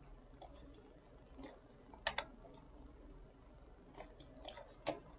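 Faint, irregular small clicks over a low steady hum. The two most distinct clicks come about two seconds in and near the end.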